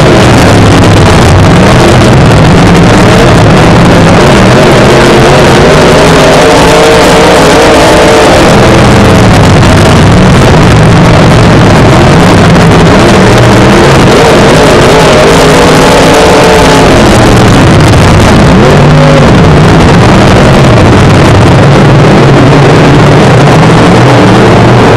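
Dirt-track modified race car's V8 engine heard from on board, revving up and down repeatedly as it laps, very loud and pinned at full scale, with a dense rush of wind and track noise.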